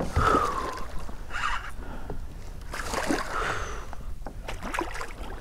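A hooked red drum splashing and thrashing at the water's surface beside a kayak, in several separate bursts of splashing.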